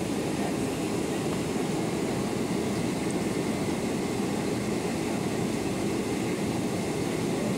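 Steady cabin noise of a Boeing 767-300ER airliner on approach: an even, unbroken rumble of engines and airflow, heard from a window seat beside the wing.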